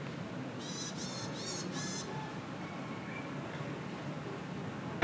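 Four quick, high-pitched chirps from a small bird, close together, over a steady background of ambient noise.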